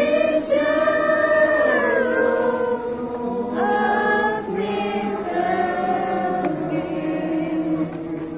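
A choir singing a Christian song, several voices together in long held notes that glide between pitches.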